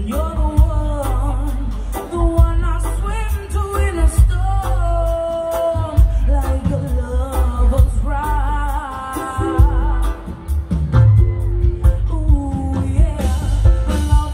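Live reggae band playing, with a sung vocal melody over strong bass, drums, guitar and keyboards.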